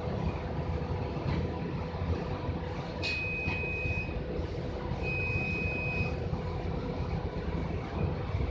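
Wind of a dust devil rumbling on the microphone over a constant hum. Two long, steady high electronic beeps come about three and five seconds in.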